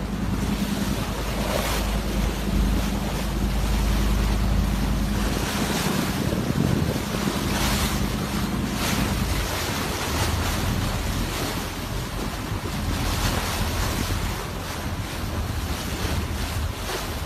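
Wind buffeting the microphone and sea water washing along a boat's side, over the low steady hum of the boat's engine, which fades out about halfway through.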